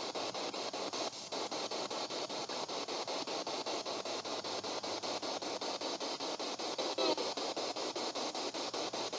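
Spirit box (radio scanner) sweeping through stations: steady static hiss chopped into rapid, even pulses. A brief voice-like fragment comes through about seven seconds in, which the ghost hunter takes for the word "help".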